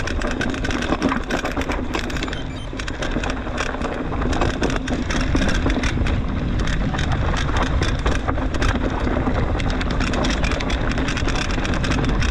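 Mountain bike riding down a rough dirt trail: tyre noise and constant rattling and clicking of the bike over the ground, with a low rumble that grows stronger about four seconds in.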